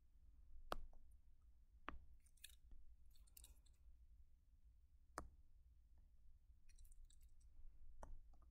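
Faint, sharp clicks, four of them spaced a second or more apart, with short soft scraping sounds between them, from hand input while drawing on a computer, over a low steady hum.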